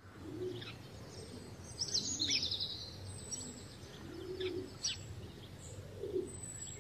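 Outdoor birdsong: small birds chirping, with a dense trill about two seconds in, while a pigeon coos low and repeatedly underneath.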